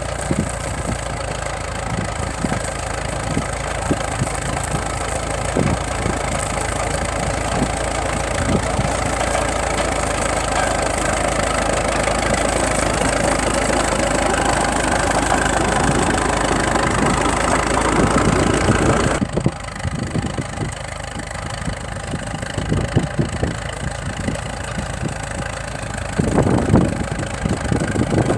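Tractor engine running steadily at idle with a light knock; the sound changes abruptly about two-thirds of the way through.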